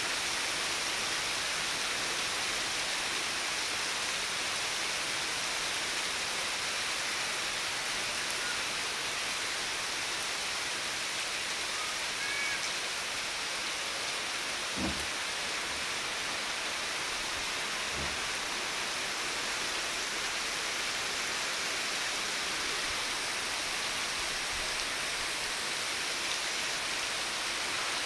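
Heavy tropical rain pouring down steadily, a dense even hiss of downpour. A faint low knock sounds about halfway through and another a few seconds later.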